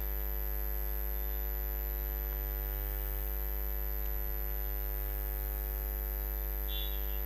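Steady electrical mains hum with a buzzy stack of overtones and a faint high-pitched whine above it.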